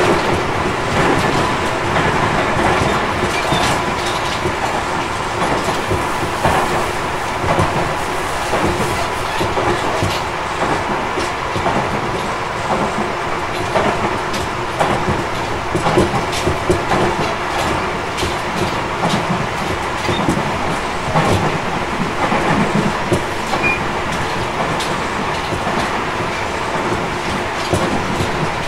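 Tobu 50050-series electric train heard from inside motor car MoHa 58055 running at speed: a steady rumble of wheels on rail, broken by frequent clicks over rail joints, with a faint steady tone underneath.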